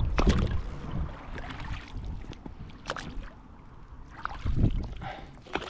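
Oars of a small inflatable boat being rowed, splashing and pulling through the water, with a few short knocks along the way. A low rumble of wind on the microphone at the start.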